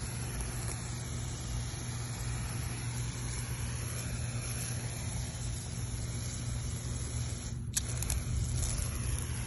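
Steady hiss of a garden sprayer wand spraying liquid black mulch colorant onto wood mulch, with one short click near the end.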